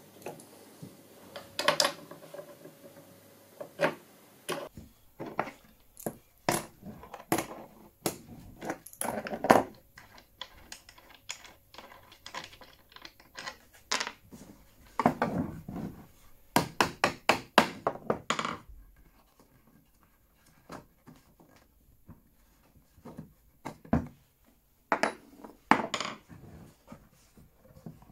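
Hand tools and hardware handled on a workbench as a bolted wooden pivot is taken apart: scattered clicks, knocks and metal clinks of a wrench, nut and washers against the bench and wooden parts, with a quick run of clicks about two-thirds of the way in.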